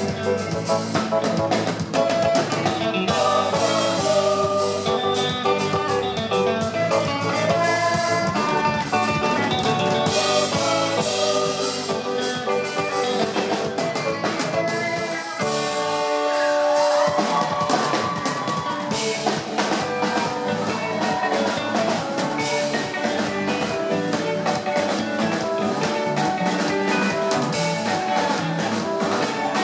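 Live afro-soul band playing with a drum kit keeping time. About halfway through, the drums and bass drop out for a couple of seconds under a held chord, then the full band comes back in.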